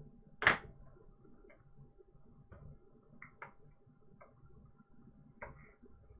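Clicks from handling a gimbal and its remote control: one sharp click about half a second in, then about six lighter clicks spread over the rest, with a faint steady hum underneath.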